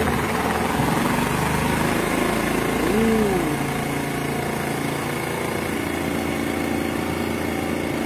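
Spin dryer of a Pyle Pure Clean twin-tub portable washer, its 120-watt motor starting up and spinning at a steady, noisy hum.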